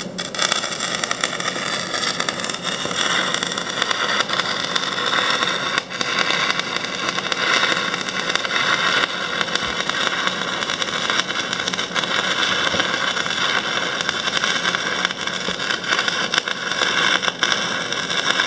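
Stick-welding arc burning a 1/8-inch E6010 rod on carbon steel: a steady, harsh crackling hiss, with one brief dip about six seconds in.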